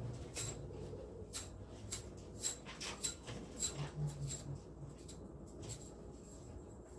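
Irregular light clicks and taps, a dozen or so spread unevenly.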